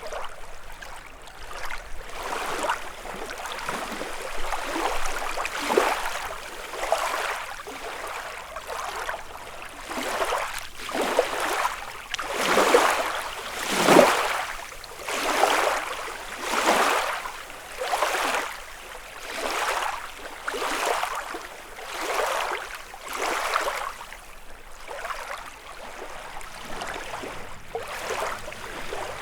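Small lake waves lapping onto the shore one after another, about one every second and a half, each a brief splashing surge, strongest around the middle.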